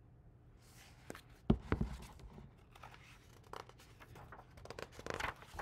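Pages of a large hardcover picture book rustling and turning as it is handled, with a few sharp knocks about a second and a half in.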